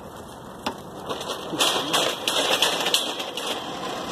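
A single sharp click, then a couple of seconds of rustling and clattering as a wiper blade and its hook adapter are handled.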